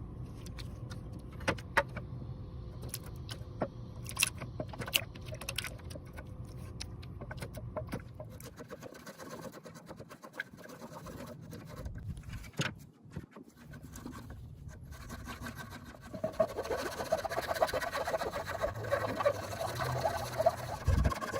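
Hand tools working wood: scattered sharp clicks and knocks, then, from about three-quarters of the way in, a dense rapid scraping of a file taking rough edges off the wood.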